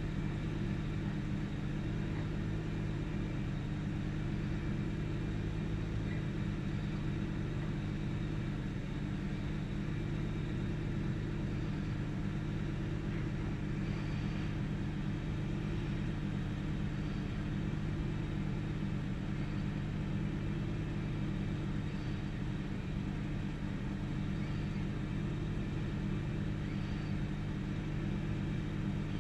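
1998 Ford Taurus's OHV V6 idling steadily at an even level. This engine has an intermittent rough idle with sputters and misses that the owner is trying to diagnose.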